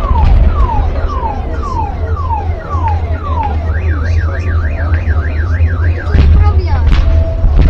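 Car alarm running through its tone cycle: a string of falling whistles about two a second, then a fast up-and-down warble, then a steady tone near the end. A heavy low rumble runs underneath, and there are a few sharp cracks about six seconds in.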